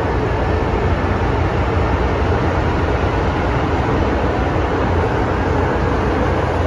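Inside an MTR Metro-Cammell M-Train (Modernised Train) electric subway car while it runs: a steady, deep rumble of the wheels and running gear.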